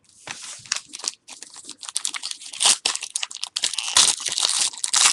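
Trading card pack wrapper being torn open and crinkled by hand, an irregular run of crackling and crunching that grows louder toward the end.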